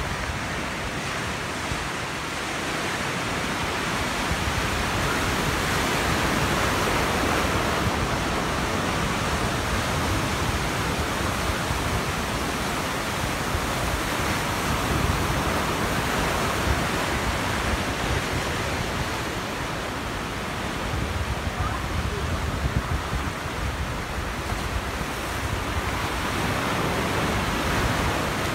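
Ocean surf washing in over rocks: a steady rushing that swells and eases every several seconds, with some wind on the microphone.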